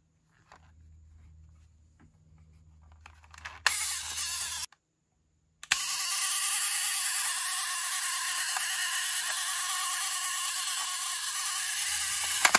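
Clockwork wind-up mechanism of a 1982 Tomy Pocket Arcade Space Dock game running with a steady whir. A click starts a short burst that cuts off abruptly; about a second later another click starts it again and it whirs on evenly. Before that there is only faint handling of the plastic case.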